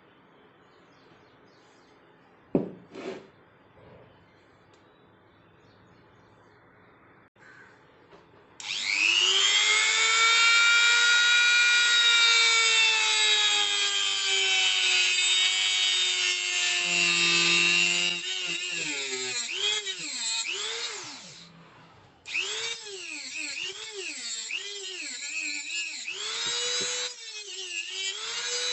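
Electric power tool spinning up and grinding against the steel knife blade for rust removal. Its whine sags and wavers as the blade is pressed on, stops briefly, then starts again. Two short knocks come before it.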